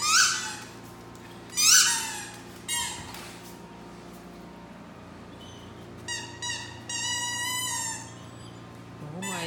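Rubber squeaky ball toy squeaking as a Great Dane mouths and paws it: a few short, high squeals that drop in pitch, then a longer, steadier squeal about six seconds in.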